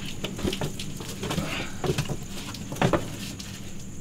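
Scattered light knocks and shuffling as people shift and settle onto chairs, with two sharper taps about two and three seconds in, over a low steady hum.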